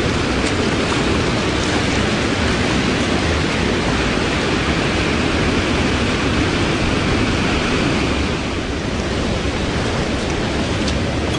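Steady rushing of a wide, shallow creek flowing over its bed, a constant loud hiss, dipping a little about eight seconds in.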